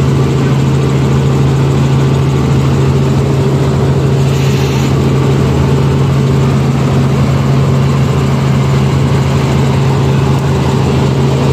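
Helicopter cabin noise in flight: a loud, steady drone of the rotor and engine heard from inside the cabin, with a brief rise in hiss about four seconds in.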